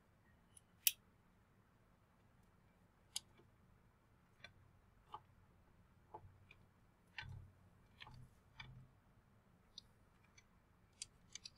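Faint, scattered clicks and a few soft thumps of handling while a charger is plugged in to a dying battery.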